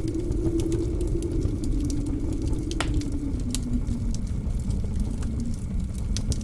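Wood fire in a fireplace crackling with scattered sharp pops, one louder about three seconds in. Behind it runs the steady low rumble and howl of blizzard wind, its pitch slowly sagging and rising again.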